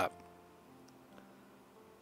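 Faint background music with a few soft, sustained piano notes, the last syllable of narration cutting off right at the start.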